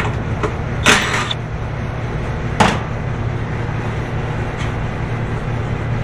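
Sheet-metal access panel of a rooftop AC unit being handled: a short scraping rush about a second in and a sharp clack at about two and a half seconds, over a steady low machinery hum.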